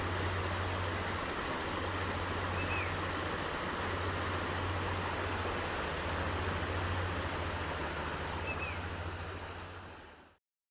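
Small headwater forest stream running, a steady rush of water with a low rumble underneath. A bird gives a short high chirp twice. The sound fades out near the end.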